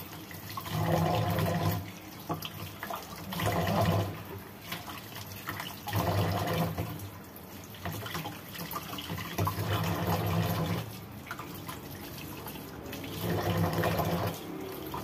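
Water running from a kitchen tap onto a hand rinsing food in the sink, with the splashing getting louder in stretches of about a second, every few seconds.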